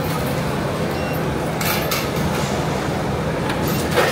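Steady background din of a busy indoor food court: a constant low hum under a general noise, with two short clatters, one about a second and a half in and one near the end.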